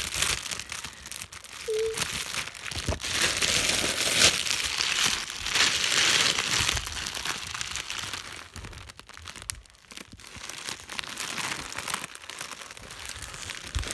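A plastic bag crinkling and rustling as it is handled, in uneven bursts with occasional clicks.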